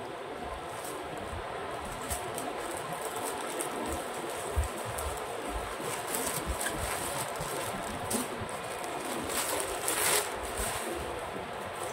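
Plastic courier bag crinkling and rustling as it is handled and pulled open, with many small crackles and a louder crackle about ten seconds in.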